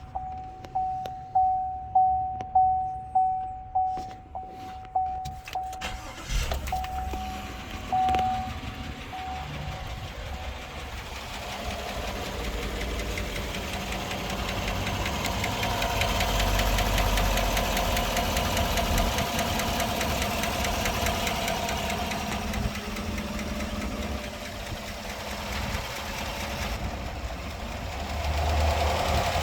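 A warning chime repeats at an even pace, then the 2014 Chevrolet Silverado's 5.3-litre V8 starts about six seconds in and settles into an idle with a fast, steady ticking. The ticking comes with P0340/P0341 camshaft position sensor trouble codes.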